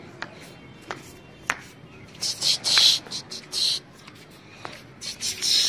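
Several short scuffing footsteps on a concrete floor, from about two seconds in, with a few sharp clicks before them.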